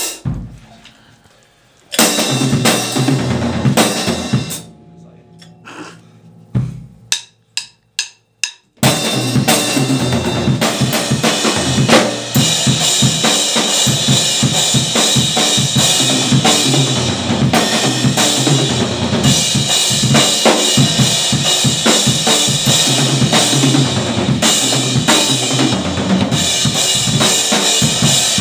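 Drum kit played with bass drum and snare: a lighter opening, then a few sharp, separated hits with short gaps between them, then a steady full-kit groove from about nine seconds in.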